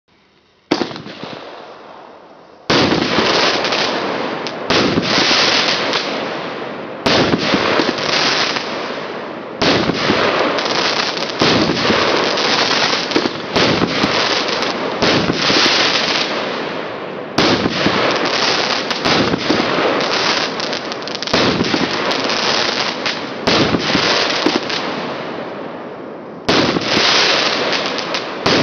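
A 25-shot, 30 mm-calibre firework cake (SU-25 'Novorichna') firing shot after shot. A loud report comes every two to three seconds, each followed by a long crackling tail that fades.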